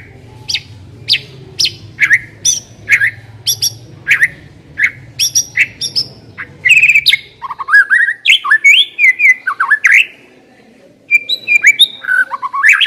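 White-rumped shama (murai batu) singing loudly: sharp whistled notes about two a second at first, then a denser run of rapid, varied whistled phrases in the second half, broken by a short pause just after ten seconds.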